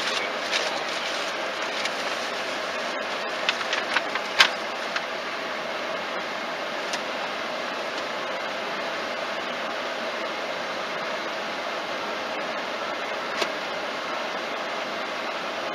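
Steady in-cabin noise of a car idling and creeping forward at walking pace. A few light clicks and taps come in the first five seconds, and one more about thirteen seconds in.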